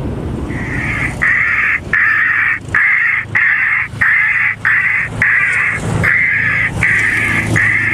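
Acoustic bird repeller's loudspeaker playing recorded bird distress cries: loud, harsh calls about half a second long, repeated about one and a half times a second, starting about half a second in. It is broadcasting alarm and distress calls to scare off a flock of jackdaws.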